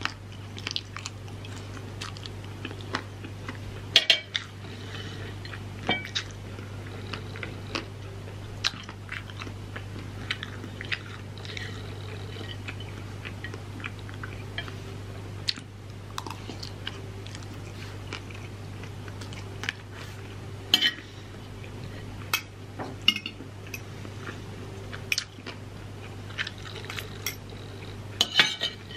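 Close-up chewing and biting of stir-fried egg noodles and rice, with a metal spoon and fork clicking and clinking against a ceramic plate. A steady low hum runs underneath.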